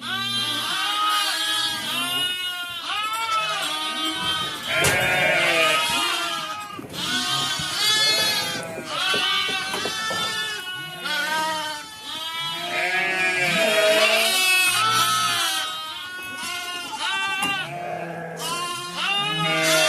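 A herd of sheep and goats bleating continuously, with many calls overlapping one another.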